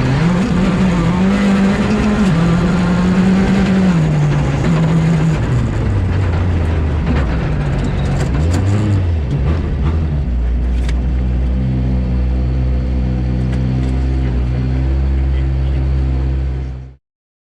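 Skoda Fabia R5 rally car's turbocharged four-cylinder engine, heard onboard: it revs up and down for the first few seconds, drops to a lower speed, blips once briefly, then settles into a steady low idle. The sound cuts off suddenly near the end.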